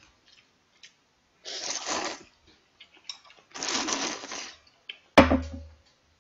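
Two long slurps of clam kalguksu noodles and broth from a bowl held at the mouth, about a second each, followed by one sharp loud knock near the end.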